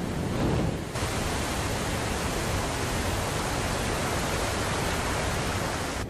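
Steady roar of Victoria Falls, the Zambezi plunging into its gorge. It swells over the first second, then holds as an even rushing.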